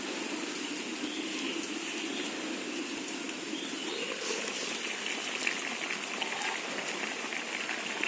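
Mutton and potato curry sizzling in a covered iron karahi as it braises dry in its oil: a steady crackling hiss that grows louder in the second half as the lid comes off.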